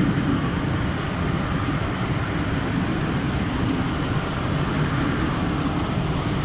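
Embraer ERJ190 jet airliner's engines running, a steady rumble with a faint high whine above it. The uploader finds the noise strange and abnormal.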